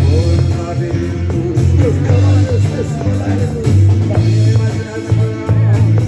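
Rock band playing live, with a loud bass line and a steady drum beat under a melody that slides in pitch.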